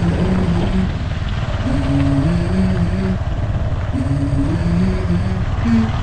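Wind rumble from riding on a motorcycle, loud and steady on the microphone, with background music laid over it: a tune of low notes stepping up and down.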